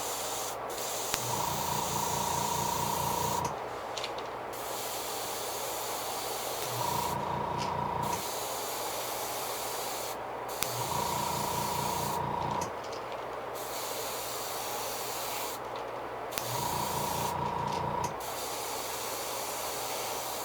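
Airbrush spraying paint in a steady hiss, with about six short breaks where the trigger is let off. A low hum with a higher whine cuts in and out every few seconds.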